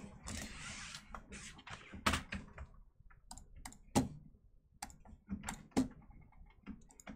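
Scattered clicks of a computer keyboard and mouse, irregular and spaced out, with a few sharper knocks among them and a short rustle near the start.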